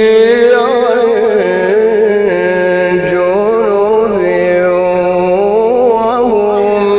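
A man's voice reciting the Quran in the melodic mujawwad style, drawing out one long phrase with wavering, ornamented turns of pitch.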